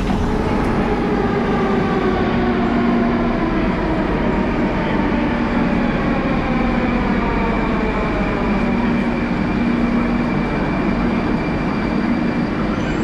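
Interior sound of a Moscow metro 81-740.1 Rusich train braking to a stop at a station: its electric traction whine falls slowly in pitch over the first several seconds, over a steady loud rumble and hum of the car's equipment.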